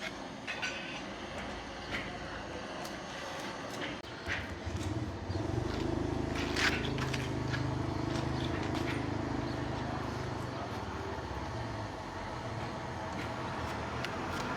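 An engine running steadily for several seconds, starting about four seconds in and fading away near the end, with scattered small clicks and knocks of tools and parts throughout.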